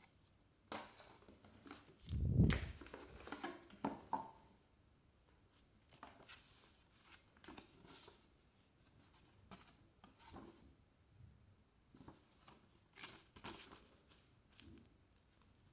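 Packaging being handled during an unboxing: scattered taps, clicks and crinkling rustles, with a louder handling thump about two seconds in.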